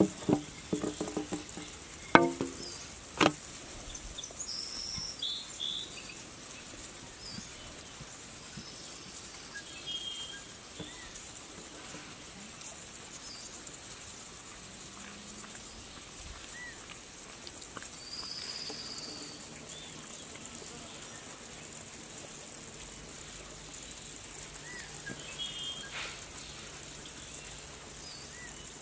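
Scattered short bird chirps over a steady high hiss. In the first few seconds a few sharp knocks, the loudest two about two and three seconds in, from the wooden rolling pin knocking against the metal baking tray.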